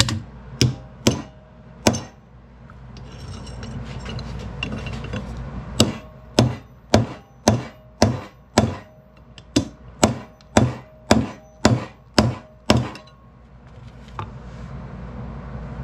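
Hammer blows on a bent steel ATV brake caliper mounting bracket held on an anvil: three strikes, a pause, then a steady run of about fourteen strikes at roughly two a second. The bracket is being straightened cold, without heat.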